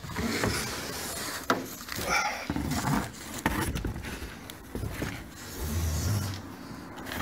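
Cardboard box and plastic wrap scraping and rustling as a boxed skylight is slid about and handled, with a few sharp knocks.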